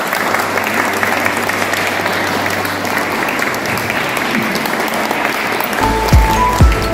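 Congregation applauding, many hands clapping together. Near the end, music with a bass beat comes in over it.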